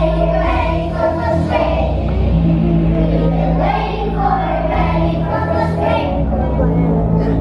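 Group of young children singing together over instrumental accompaniment.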